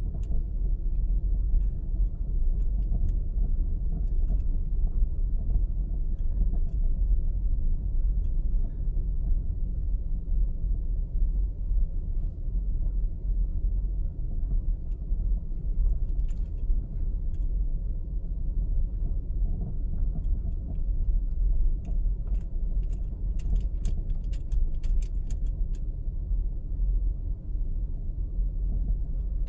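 Road and tyre rumble inside the cabin of a 2018 Subaru Outback driving over rough, potholed asphalt, with keys jangling in light clicks that come thicker about two-thirds of the way in. The owner says the jangle partly masks a clunk from the driver's side front wheel.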